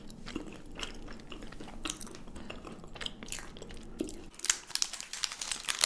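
Close-up chewing and crunching of chocolate, a run of irregular sharp crunchy crackles that grow denser and louder near the end.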